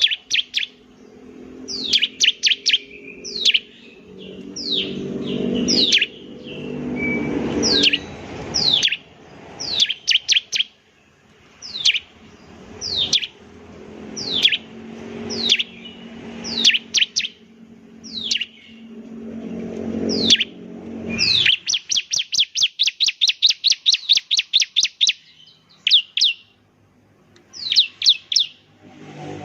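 Bar-winged prinia (ciblek) singing: sharp downward-sweeping chirps in quick groups of two or three, repeated every second or two. Later comes a fast even trill of rapid notes lasting about four seconds. A low hum swells and fades underneath at times.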